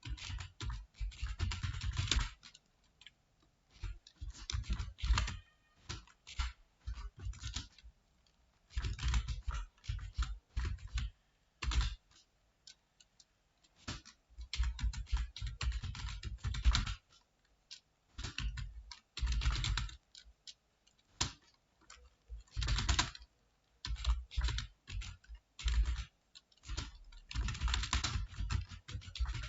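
Computer keyboard being typed on in quick runs of keystrokes, a second or two at a time, with short pauses between them.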